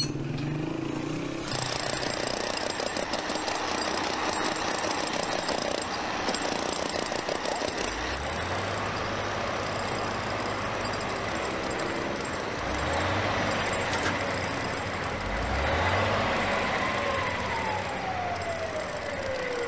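Heavy lorry's diesel engine running in street traffic, rising in pitch three times as it revs. Near the end a falling whine is heard.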